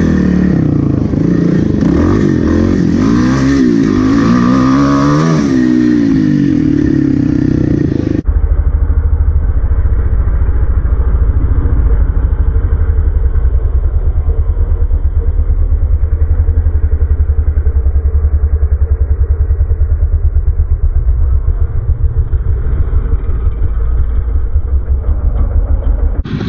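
Kawasaki KLX300 single-cylinder four-stroke dirt bike being ridden, the engine revving up and down with the throttle. About eight seconds in the sound turns abruptly to a dull, low, rapid pulsing with the high end gone.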